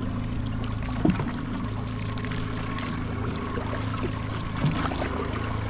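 Mercury four-stroke outboard idling with a steady low hum, while water trickles and laps against the hull. There is a short knock about a second in.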